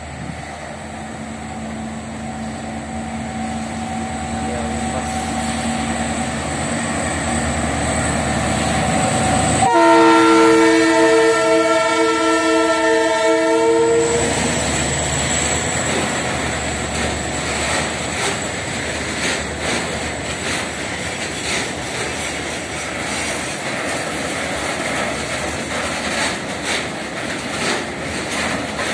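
Freight train of tank wagons passing. The approaching locomotive sounds one long horn blast of about four seconds, starting about ten seconds in, then the tank wagons roll by with a steady clickety-clack of wheels over the rail joints.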